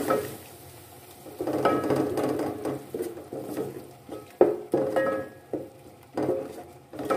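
A spoon stirring and scraping a thick tomato-and-yogurt masala around an aluminium pot, in irregular strokes with sharp knocks and short rings where the spoon hits the metal.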